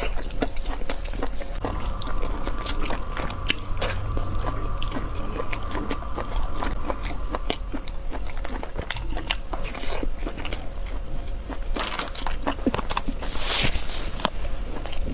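Close-miked eating sounds of spicy cuttlefish noodles being chewed and bitten, with many small wet clicks and crunches. Two longer rushes of sound come near the end.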